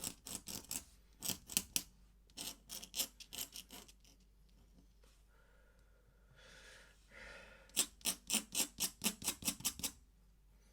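Ink pen scratching across paper in quick, short strokes, like hatching, coming in runs with a pause in the middle.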